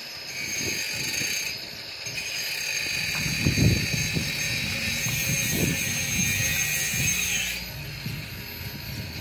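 A small electric motor whines in runs, starting about a third of a second in, stopping briefly about a second and a half in, then running again until it spins down about seven and a half seconds in. Low thuds and scraping sound under it, loudest about three and a half seconds in.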